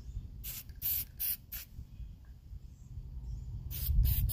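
Aerosol can of black spray paint fired in short bursts: four quick sprays in the first second and a half or so, a pause, then two more near the end.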